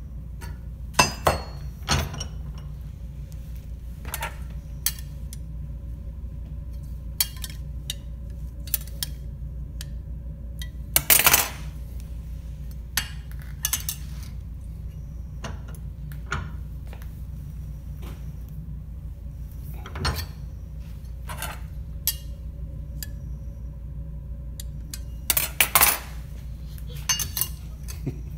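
Irregular metal clinks and knocks of a steel orthotic stirrup and hand tools against a bench vise as the stirrup is checked and bent. Louder clusters come about a second in, around the middle and near the end, over a steady low hum.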